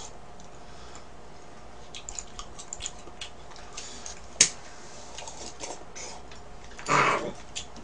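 Scattered light clicks and ticks, with one sharp click about four and a half seconds in and a short rustling burst near the end.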